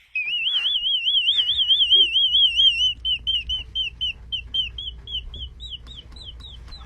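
A high, rapidly warbling whistle-like tone that holds for about three seconds, then breaks into separate short rising chirps that slow down and climb in pitch.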